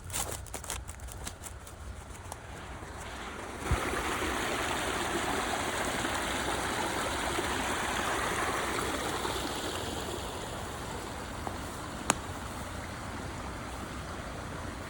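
Drained pond water rushing out through a channel cut in the earthen dam: a steady stream of flowing water that grows suddenly louder about four seconds in. There is a single sharp click near the end.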